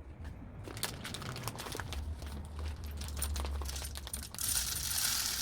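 Wild bird seed being poured: many small hard seeds rattle and click against one another and a container. About four seconds in, this turns into a steady hiss as the seed runs out in a stream.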